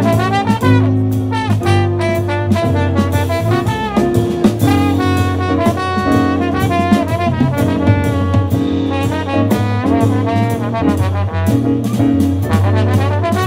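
Live band playing an instrumental passage led by brass instruments over a drum kit, with no singing.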